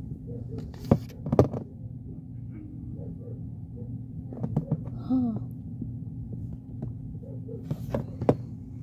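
Soft knocks and clicks of toys being handled on a carpet, a few at a time about a second in, around four and a half seconds and near the end, over a steady low hum. A short wordless child's voice sound comes about five seconds in.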